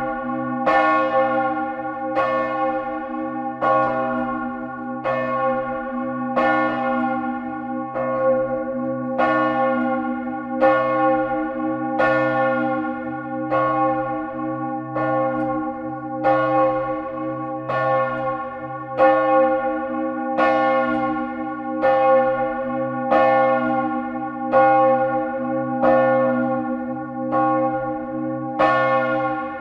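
The great bell (Grand'Cloche) of a French parish church swinging in full peal, heard close up in the belfry. Its clapper strikes about once a second over a continuous ringing hum.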